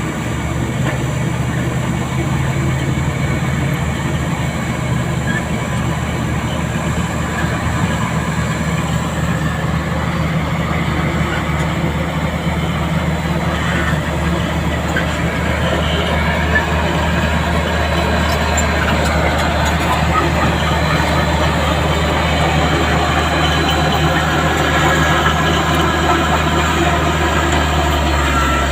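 Heavy diesel earthmoving machinery running steadily with a deep, constant engine hum, growing slightly louder towards the end.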